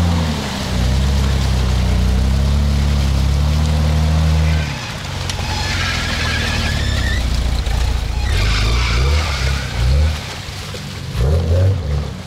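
Off-road vehicle's engine held at steady high revs for about four seconds, then dropping back, with short bursts of revving near the end.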